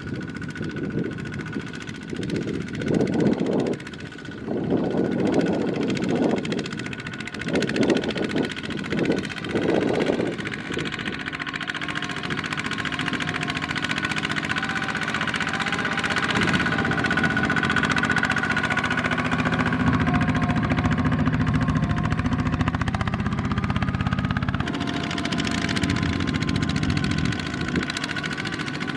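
Single-cylinder diesel engines of two-wheel walking tractors running under load while hauling rice trailers. The engine note swells in several surges during the first ten seconds, then runs steadily.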